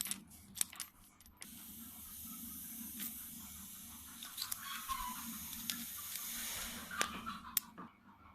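Aerosol can spraying in one continuous hiss for about six seconds, starting abruptly about a second and a half in and cutting off near the end. It is likely cleaning spray or compressed air on a phone circuit board. A few light clicks and taps come before it.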